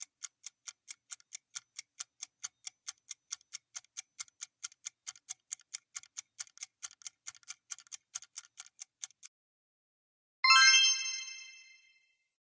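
Quiz countdown timer sound effect ticking steadily, about four ticks a second, stopping about nine seconds in. About a second later a bright chime rings once and fades, marking time up and the reveal of the correct answer.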